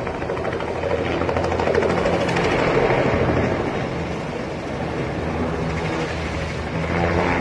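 Bell 206 helicopter's rotor chopping rapidly over its running turbine as the aircraft spins out of control, growing louder around two to three seconds in.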